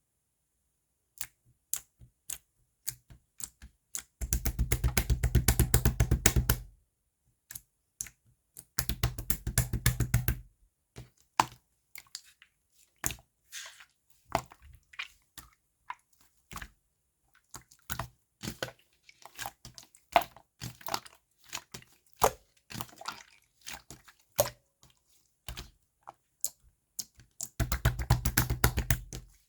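Blue and purple slime being mixed by hand: sticky clicks and pops as it is pressed and pulled. Three times it breaks into a stretch of rapid crackling, about four seconds in, about nine seconds in and near the end.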